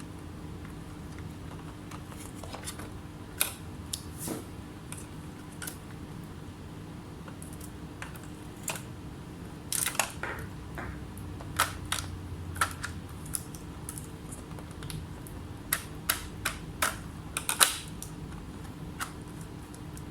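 Irregular small clicks and taps of hand work at a repair bench, some in quick clusters, over a steady low electrical hum.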